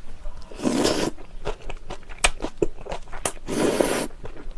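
Jjajangmyeon noodles in black bean sauce slurped in twice, about half a second in and again near the end. Between the slurps come wet chewing and lip-smacking clicks.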